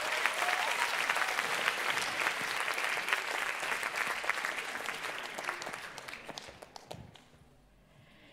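Large audience applauding, a dense patter of many hands clapping that thins out and fades away about seven seconds in.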